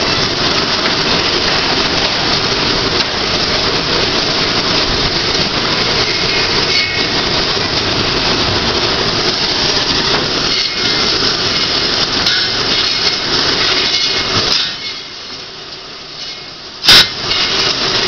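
Sawmill machinery running: a loud, dense, steady din from the mill's saws and chain lumber conveyors. Near the end the noise drops away for about two seconds, then a single very loud, sharp pop.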